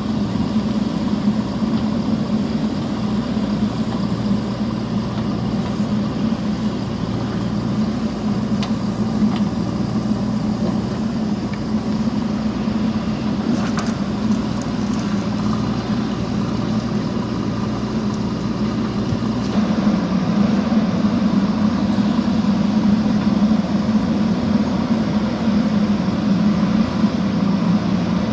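JCB backhoe loader's diesel engine running steadily as the machine digs, with a single brief knock about halfway and the engine getting a little louder about two-thirds through.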